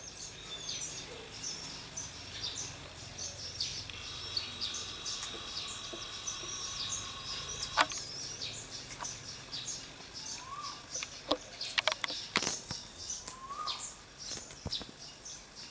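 Garden birds chirping, many quick high notes overlapping, with a steady high tone held for a few seconds in the first half. A few sharp clicks come in the second half.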